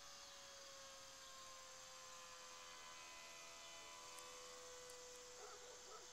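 Faint steady whine of the E-flite Curtiss N9 model biplane's electric motor and propeller in flight, its pitch sliding slowly lower as the plane flies off.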